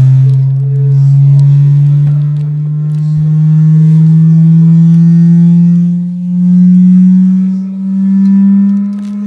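Loudspeaker playing a low test tone that glides slowly and steadily upward in pitch, a frequency sweep used to drive water into resonance. Its loudness swells and dips every two to three seconds.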